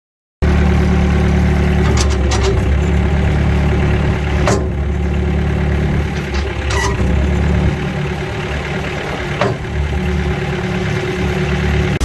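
An engine running steadily and loudly close by, cutting in suddenly about half a second in, with a few sharp clicks or knocks over it.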